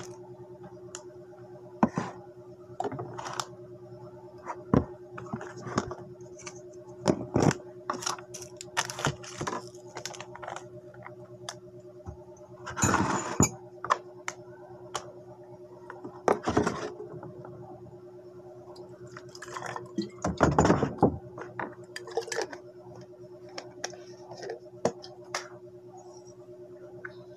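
Cups and a spoon being handled while instant coffee is made: scattered clinks and knocks, with two longer noisy stretches about halfway and two-thirds of the way in. A steady low hum runs underneath.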